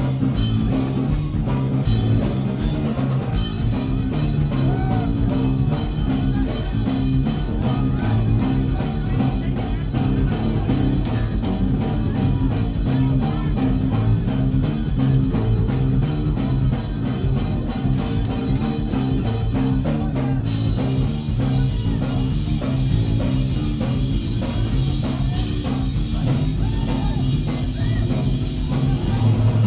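A rock band playing live, with electric guitar, bass and a drum kit keeping a steady driving beat.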